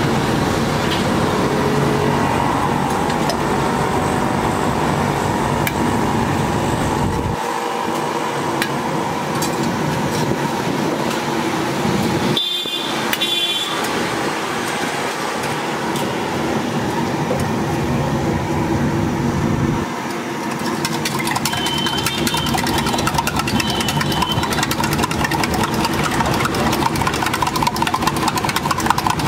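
Steady roadside traffic noise of passing motor vehicles, with short high tones about halfway through and again later.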